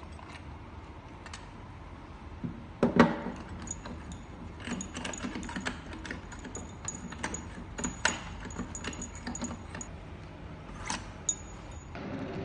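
Scattered clicks, clinks and rattles of air cushion packaging machine parts being handled and fitted by hand, with one louder knock about three seconds in.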